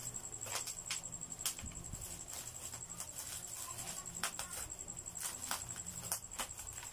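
Scissors cutting into the plastic wrap and packing tape of a parcel: irregular faint snips and crinkles, over a steady high whine.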